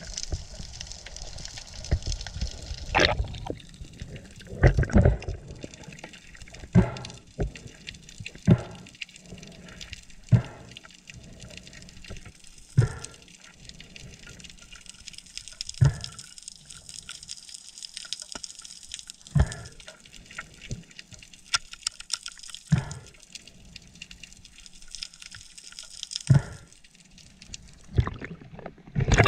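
Water heard through a submerged camera: a steady hiss with dull knocks and gurgles every few seconds.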